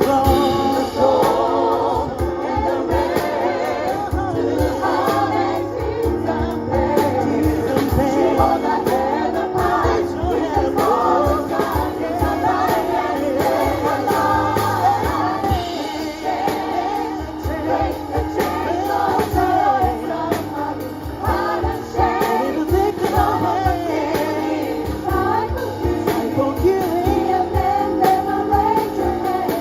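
Gospel choir singing live, backed by keyboard and percussion with a steady beat.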